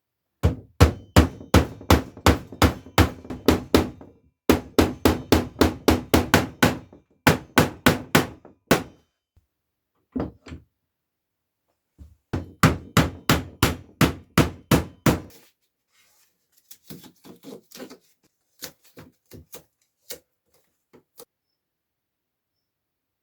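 Hammer driving nails, in quick runs of about four blows a second with short pauses between runs. Lighter, fainter taps follow in the last few seconds.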